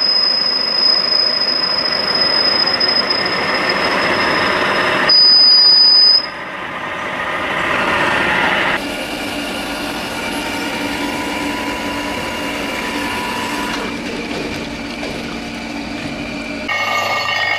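Metalworking machines cutting steel: a lathe turning a large twist drill bit, with a steady high-pitched whine over the cutting noise for about the first six seconds. Then other shop machinery runs, and its sound changes abruptly about six and nine seconds in.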